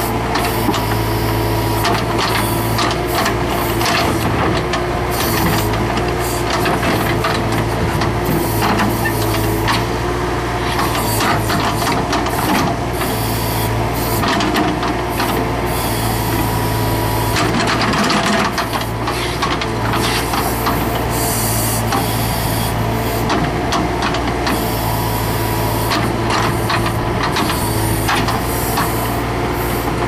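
Bobcat 863 skid steer's diesel engine running steadily under load, powering the hydraulics of a Bobcat 709 backhoe attachment as it digs, with irregular clanks and knocks from the boom and bucket working in the dirt.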